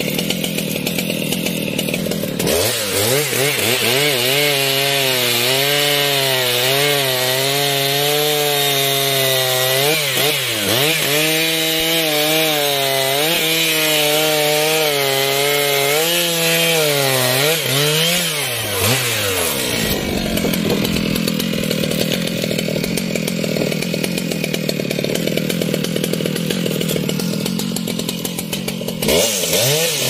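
Large Stihl chainsaw bucking a trembesi log, its engine held high under load with the pitch wavering and dipping briefly as the chain bites. Around two-thirds through, the engine note falls away into a rougher, noisier stretch, and near the end it rises again.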